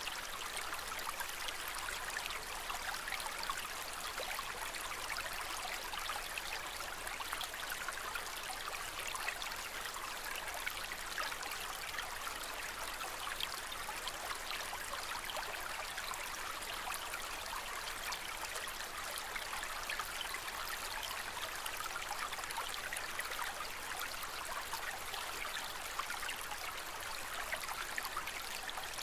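Aquarium water trickling steadily, a soft even splashing with no pauses.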